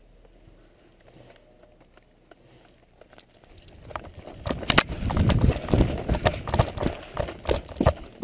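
Running footsteps of a person on wet, leaf-littered dirt, heard close up through a head-mounted camera. They start suddenly about four seconds in after a quiet stretch and come as quick, irregular thuds and knocks.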